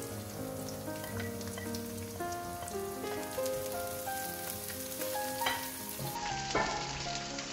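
Sliced shallots and chilies sizzling in hot oil in a nonstick wok, stirred with a wooden spatula that scrapes the pan now and then. Gentle instrumental background music plays over it.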